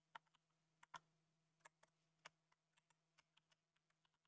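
Faint, irregular clicking of computer keyboard keys being typed.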